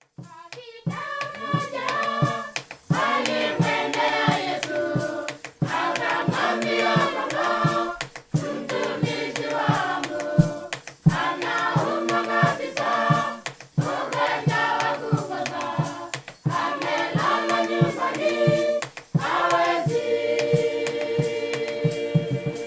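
A choir singing in phrases of a few seconds each over a steady beat of sharp claps; near the end the voices hold one long chord.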